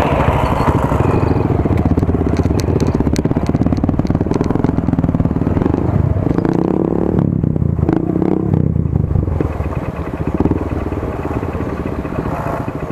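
Single-cylinder engine of a Hero CBZ Xtreme motorcycle running at low speed on a rough stony trail. Loose stones and rattling parts click now and then, several times a couple of seconds in.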